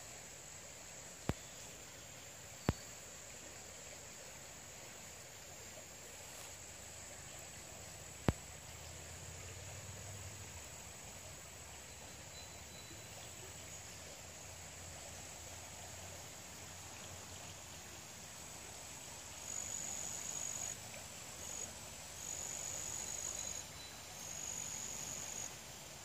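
Insects give a steady high-pitched drone over the soft hiss of a babbling brook. Near the end the buzzing swells louder in three bouts of about a second each. Three sharp clicks fall in the first eight seconds or so.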